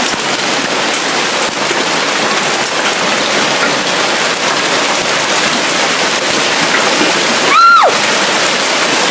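Large hailstones pelting down in a heavy storm: a dense, steady rush of countless stones striking, likened to the sound of a train.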